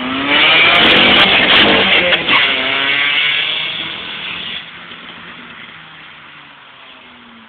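Nissan Sentra Spec V engine with an exhaust leak, which the owner says makes it sound like a Honda. It revs up in the first second, stays loud, then the revs fall away and it quietens after about four and a half seconds.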